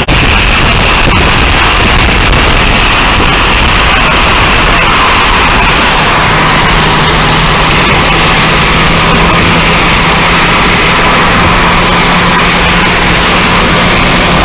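Loud steady road and wind noise inside a moving car's cabin, with the rush of tyres and air over the engine's running. A faint steady low hum joins about six seconds in.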